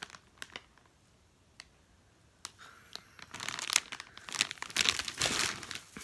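Plastic bag crinkling as it is handled, starting about three seconds in after a few faint clicks.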